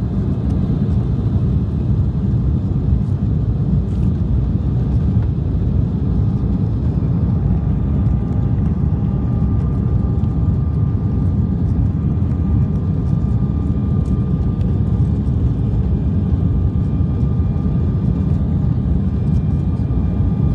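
Jet airliner heard from inside the cabin at take-off thrust: a loud, steady rumble of engines and airflow through the take-off roll, lift-off and initial climb. From about eight seconds in, faint steady tones sit above the rumble.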